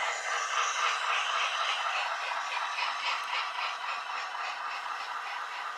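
OO gauge model train running on its track: the steady rattle and whir of the locomotive's wheels and motor and the coaches' wheels on the rails, with a run of quick clicks from the rail joints, slowly getting quieter.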